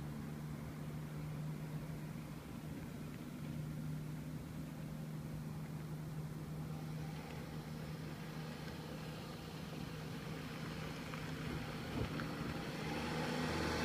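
Road traffic: a steady low engine hum, then the noise of a vehicle growing louder near the end as it approaches. There is a single sharp click shortly before.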